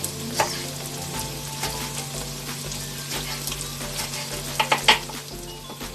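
Chopped onions sizzling as they fry in hot oil in a pot, with scattered sharp clicks and knocks, the loudest a quick cluster about five seconds in.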